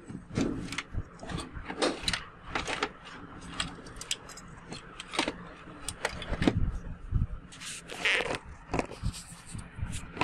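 Hands handling a colour CRT TV's wiring and circuit board: irregular clicks, rattles and scrapes of cables, connectors and the metal chassis bracket.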